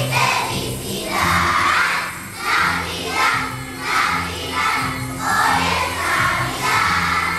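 A group of young children singing together over a musical accompaniment with a steady bass line, with small jingle bells shaken along.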